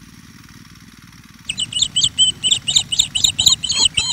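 A songbird singing a quick run of high chirps, about six notes a second, starting about a second and a half in, over a low steady rumble.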